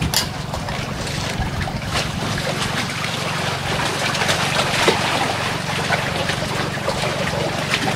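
A boat engine running steadily with a low hum, over water splashing and wind on the microphone. A few light knocks and clicks, the sharpest just after the start, from a small metal tank being handled.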